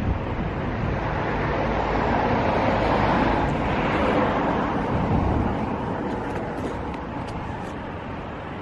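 A vehicle passing by: a rush of noise that swells to a peak about halfway through and then fades away, over a steady low rumble.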